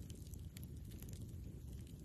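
Campfire crackling: small, sharp wood pops scattered irregularly over a steady low rumble.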